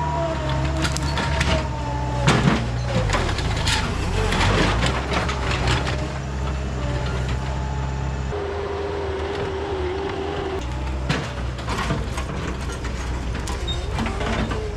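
Bobcat skid steer's diesel engine running hard with a shifting hydraulic whine, punctuated by repeated sharp cracks and snaps of wood or brush being crushed.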